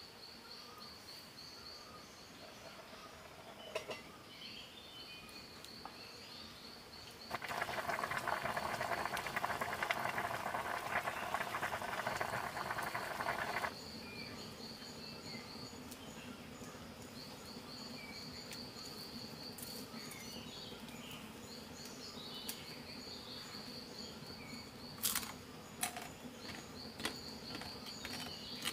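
Forest ambience: insects chirping in a fast, regular pulsing trill with scattered short bird calls. About seven seconds in, a loud steady rushing noise comes in and cuts off suddenly about six seconds later, and a few sharp clicks come near the end.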